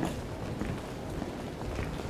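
Footsteps on a hard stone-tiled floor, a few sharp steps about every half second, over a steady low background rumble.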